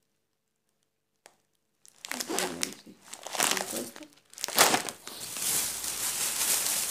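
Thin plastic shopping bags rustling and crinkling as they are rummaged through, starting about two seconds in after near silence and getting louder and denser toward the end.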